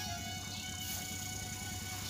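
Background music with long held notes over a low steady rumble of field noise.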